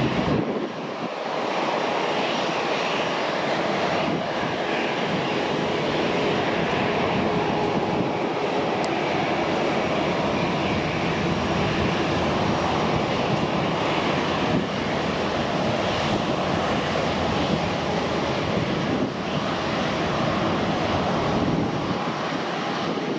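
Airbus A321's CFM56 turbofan engines running at low taxi thrust: a steady, even rushing hum with faint steady tones in it.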